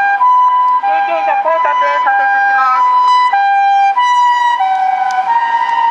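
Two-tone hi-lo ambulance siren, switching between a higher and a lower pitch about every half second. For a couple of seconds near the start a second, wavering tone overlaps it.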